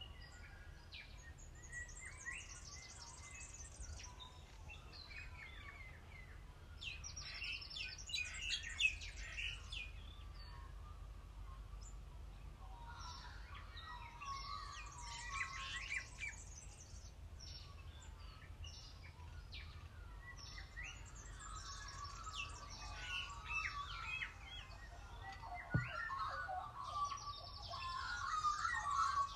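Wild birdsong: several birds chirping and warbling in rapid, high phrases that come in bursts, with a busier stretch of song in the last third.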